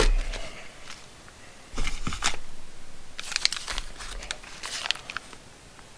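Small packs of bolts and nuts being handled and set down, in several short bursts: plastic packaging crinkling and light clicks of metal hardware.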